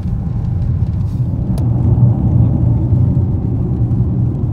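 Steady low rumble inside the cabin of a moving Dodge Magnum SRT8, its 6.1-litre (370 ci) Hemi V8 running under road noise, with one brief click about a second and a half in.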